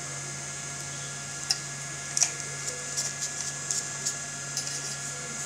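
Homemade 7000 W IGBT electric fish-shocking inverter running with a steady hum and faint high whines while its output is tried in water. Irregular sharp crackling snaps come from about a second and a half in until near the end, the two loudest close together at the start of the crackling.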